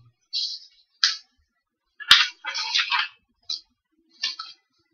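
Paper rustling in several short bursts as a notebook page is turned over, with one sharp click about two seconds in.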